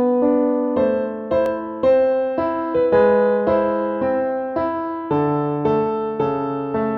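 Background piano music: single notes and chords struck about twice a second, each ringing and fading before the next.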